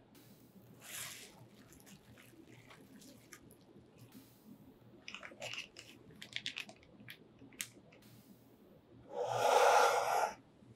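Plastic packaging (bubble wrap and a plastic bag) crinkling and rustling as it is handled, with scattered crackles in the middle. Near the end comes a louder, longer rustling scrape as the cardboard box is shifted.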